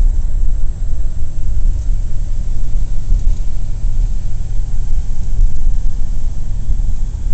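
Cabin noise inside a moving 1941 Plymouth: a loud, steady low rumble of its flathead six engine and the road.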